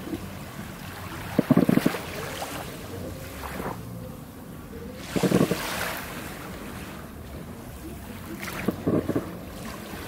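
Small sea waves lapping onto a sandy beach, each wash swelling and fading, with three louder breaks about a second and a half in, about five seconds in and near the end.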